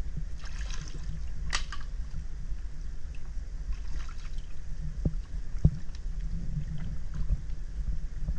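A wooden dugout canoe and a bamboo pole knocking: a sharp click about a second and a half in and a few dull knocks later, as a man shifts in the boat and works the pole among mangrove roots. Light water trickling runs beneath, over a steady low rumble.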